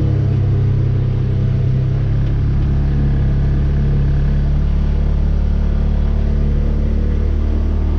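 Engine running steadily under load while pulling a field drag across the seedbed, with a constant low hum that shifts a little in pitch midway.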